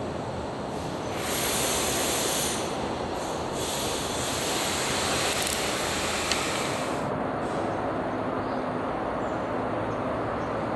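Steady outdoor background noise of passing vehicles, with a louder hiss swelling about a second in and again from about three and a half to seven seconds in, and a couple of faint clicks around six seconds in.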